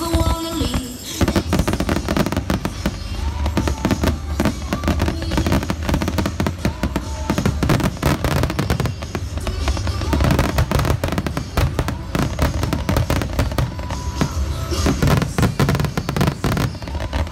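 Aerial firework shells bursting in a dense, continuous barrage of booms and crackling, which starts in earnest about a second in.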